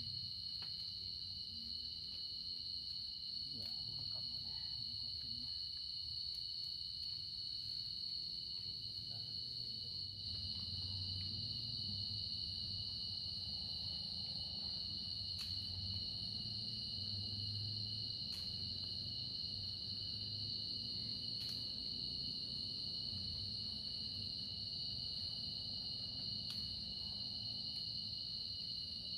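Steady chorus of insects trilling without pause at two high pitches, with a low rumble underneath.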